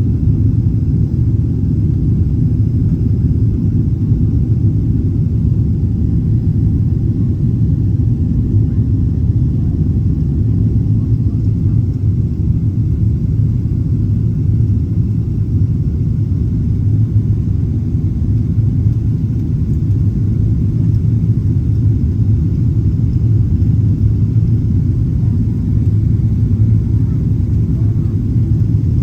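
Steady low rumble of a Boeing 777 cabin in flight: engine and airflow noise as heard from an economy window seat.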